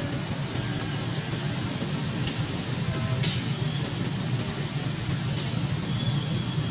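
Engines of a stream of motor scooters and small motorcycles riding slowly over a railway level crossing, a steady traffic din, with a brief sharp noise about three seconds in.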